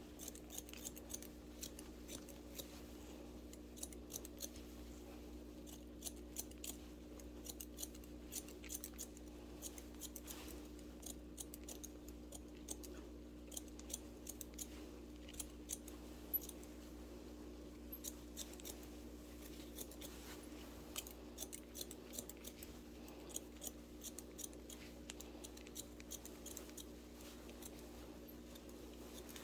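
Barber's scissors snipping hair, many quick, irregular snips over a steady low hum.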